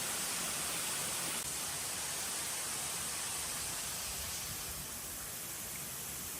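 Steady rushing hiss of falling water from a waterfall pouring into its pool, easing slightly after about five seconds.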